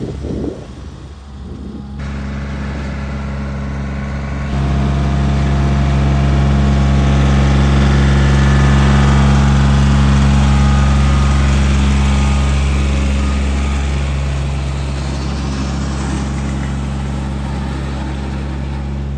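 Kioti tractor's diesel engine running at a steady pitch while it grades the gravel driveway with a box grader. It gets noticeably louder about four and a half seconds in and eases off a little toward the end. A different rumble fills the first two seconds and stops abruptly.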